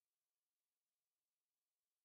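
Near silence: an essentially soundless track with only a faint, even digital hiss.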